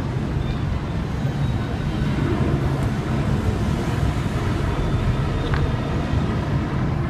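Steady low rumble of a car driving, with road and engine noise, plus a few faint ticks.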